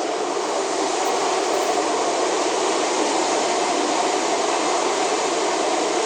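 Steady rushing noise, even and unchanging, with no pitch or rhythm.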